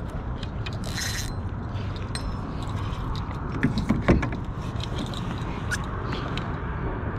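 Wind rumbling on the microphone, with a short hiss about a second in and a couple of sharp knocks around the middle.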